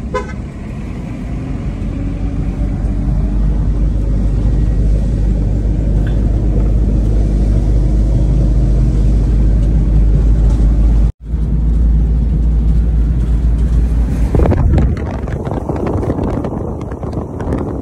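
Steady low rumble of engine and road noise inside a moving van. It cuts off briefly about 11 seconds in, and from about 14 seconds in it gives way to rougher wind noise buffeting the microphone.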